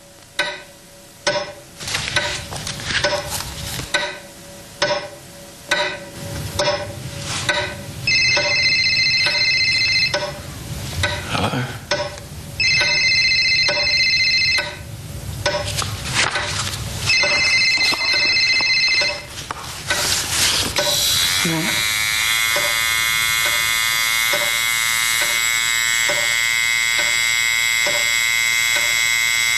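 Electric razor buzzing in on-off bursts of about two seconds, then running without a break from about two-thirds of the way through. Before the buzzing starts, a run of irregular sharp clicks and knocks.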